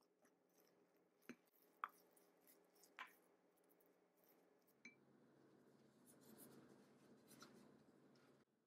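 Wooden spoon stirring oat flour and carrot purée into a stiff dough in a glass bowl, faint overall. Four sharp clinks as the spoon knocks the glass, then soft scraping and mashing that stops abruptly near the end.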